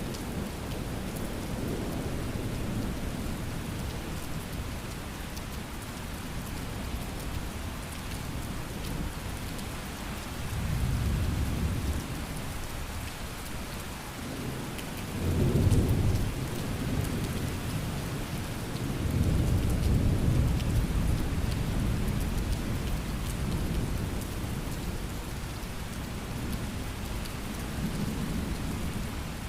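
Thunderstorm: steady rain hissing, with thunder rumbling low several times, the loudest roll about halfway through.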